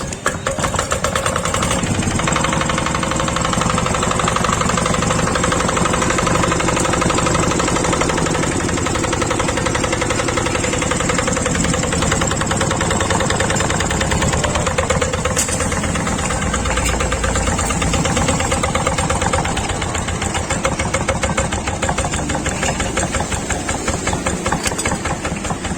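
Yanmar TF65H single-cylinder diesel engine catching and running steadily with a rapid, even knocking beat, getting a little quieter about twenty seconds in.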